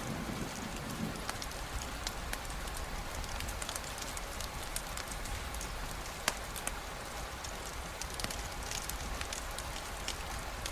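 Steady rainfall mixed with a crackling campfire: an even hiss dotted with scattered sharp pops and clicks, one louder snap about six seconds in.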